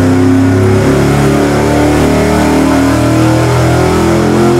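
350 small-block Chevy V8 running hard at high rpm during a dyno pull, barking through open long-tube headers and loaded by the dynamometer and a belt-driven clutch cooling fan.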